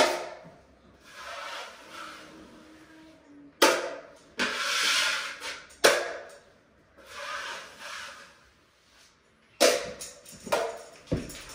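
Steel taping knife working joint compound: it scrapes the mud on and off a metal mud pan and spreads it along a drywall seam. Sharp clacks of the knife against the pan come four times, with swishing scrapes between them.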